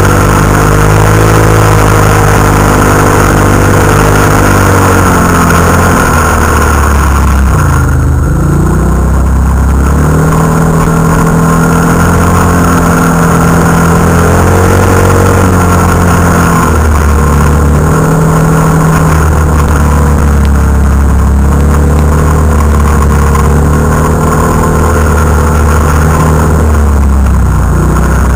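Can-Am Renegade ATV's V-twin engine running hard close to the microphone, its pitch rising and falling as the throttle is worked over sand dunes. The revs drop sharply and climb again a few times, most deeply about eight seconds in.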